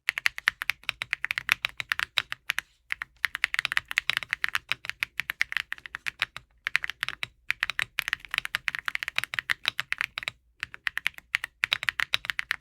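Typing on a Redragon K745 Pro mechanical keyboard with its silicone dampening layer removed, leaving only the foam behind the PCB. The result is a fast, continuous run of key clacks, broken by a few short pauses.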